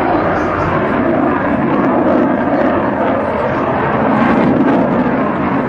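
F-16 Fighting Falcon's single jet engine running loud and steady during its display pass, swelling and easing slightly.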